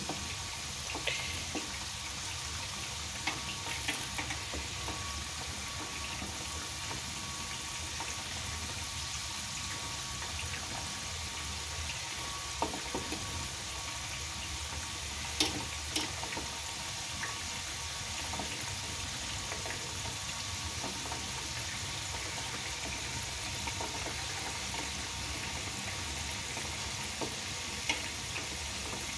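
Peeled, hollowed-out potatoes deep-frying in a pot of hot oil: a steady sizzle with a few sharp clicks here and there.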